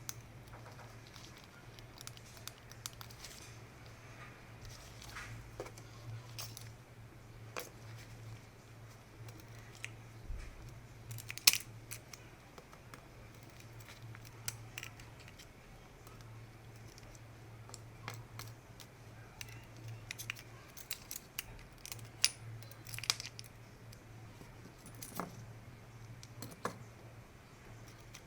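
Small hard parts clicking and clinking as they are handled on a work surface, with irregular light taps and one sharper click near the middle, over a steady low hum.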